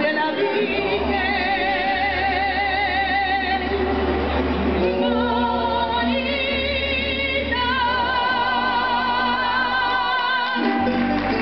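A woman sings into a microphone with wide vibrato over an amplified backing track with a steady bass line. She holds long notes, the longest from about eight seconds in to near the end.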